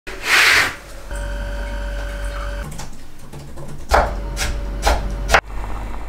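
Curtains pulled open with a brief swish, then a steady machine-like whine over a low hum for about a second and a half, followed by four short sharp swishing or clicking sounds.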